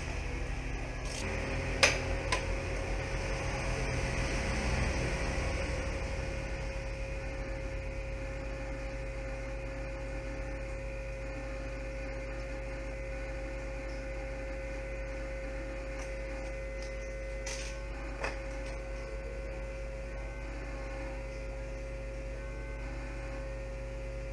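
Steady electrical mains hum, with a faint steady whine joining about a second and a half in. A few small clicks of handling come near the start and again about three quarters of the way through.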